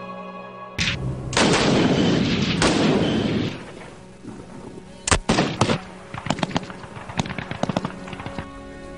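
Howa Type 64 battle rifles firing 7.62×51mm rounds. A shot comes just under a second in, followed by a long rush of firing noise. Two sharp shots come around five seconds in, then a quick, irregular string of shots over the next two seconds, with background music holding steady notes underneath.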